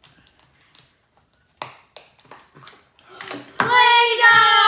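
A few light clicks and taps, then a child's long, loud, high-pitched squeal starting about three and a half seconds in, an excited reaction to the reveal.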